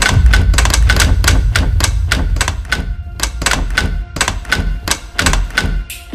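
Rapid, evenly spaced clicking, about five clicks a second, over a steady deep bass rumble.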